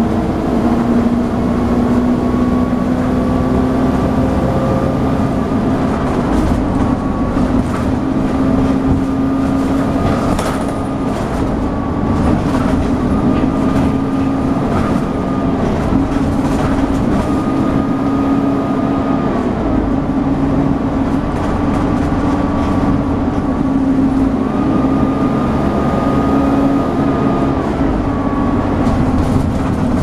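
Dennis Dart SLF bus with Alexander Enviro 200 body heard from inside, driven hard: the engine runs steadily under load with a whine that rises and falls in pitch several times, over constant road noise.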